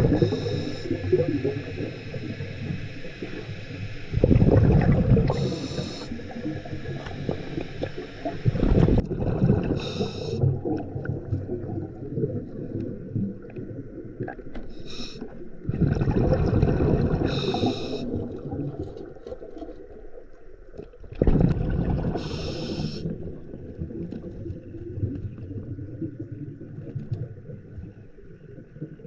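Underwater recording of a diver breathing through a scuba regulator: four bursts of exhaled bubbles, each one to two seconds long and spaced about five to six seconds apart, over a low steady rumble.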